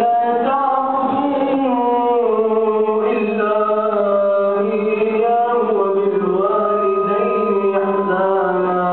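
A man's solo melodic Quran recitation (tajweed), holding long drawn-out notes that wind up and down in pitch without a break.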